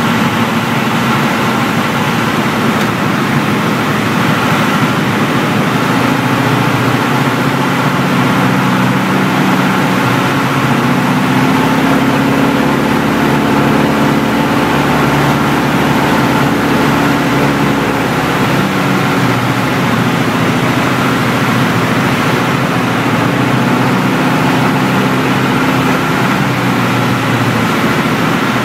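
Beagle Pup 150's four-cylinder Lycoming piston engine and propeller heard from inside the cabin in flight: a loud, steady drone with small shifts in pitch, over a rushing noise.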